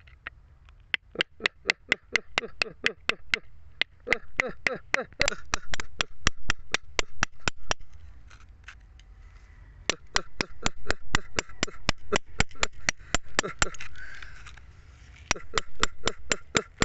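A steel chisel chipping at soft rock in quick, slightly ringing taps, about five or six a second. The taps come in runs that break off for a couple of seconds about halfway through and again briefly near the end.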